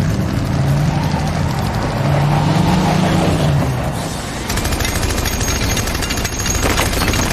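Continuous rapid machine-gun fire, a dense unbroken stream of shots, with a heavy engine rumble beneath it in the first half. The fire turns sharper about halfway through.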